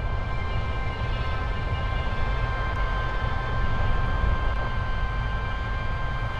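A car driving on a snow-covered road, heard from inside the cabin: a steady low rumble of tyres and engine, with a few steady high tones held over it.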